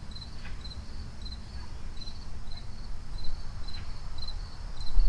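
Crickets chirping steadily, short high chirps at about three a second, over a low rumble that grows louder near the end.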